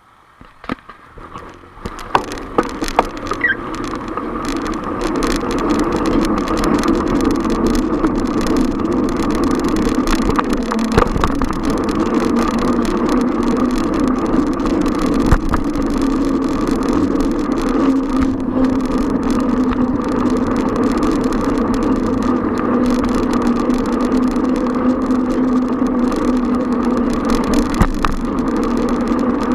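Riding noise on a moving bicycle: a few knocks, then a steady hum and rushing noise that build up over the first several seconds as it gathers speed, and hold steady from then on.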